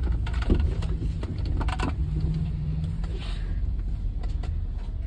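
Low engine and road rumble heard from inside a moving bus, with light rattles and clicks through it.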